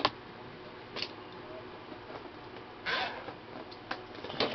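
Light knocks and a brief scraping rustle as a cardboard trading-card box is handled and sliced open.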